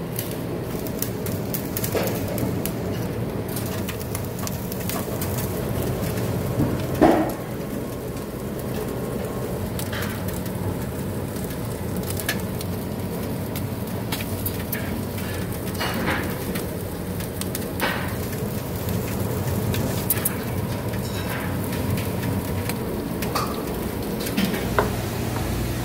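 Salted mackerel sizzling on a grill rack under the heating elements, with scattered crackles and pops over a steady low hum. A louder knock comes about seven seconds in.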